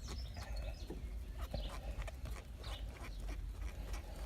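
Irregular light clicks and taps of the gear knob being twisted off the MX-5's shift lever by hand, over a low steady hum.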